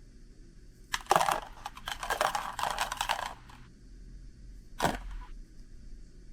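Handling noise from small objects: about two and a half seconds of clattering and rustling, then a single sharp click.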